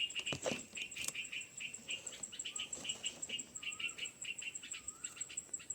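Baby birds in a nest chirping in a rapid, even series of short high chirps, with a higher, steadily pulsing trill running behind them.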